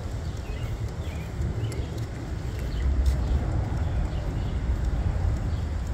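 Footsteps of a person and a leashed dog walking on a concrete sidewalk, under a steady low rumble of wind on the phone's microphone that swells about three seconds in.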